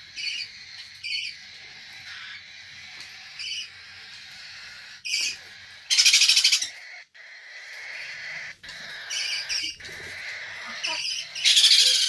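Hungry hand-fed parrot chicks begging for food: short chirping calls again and again, with two loud raspy screeches, one about six seconds in and one near the end.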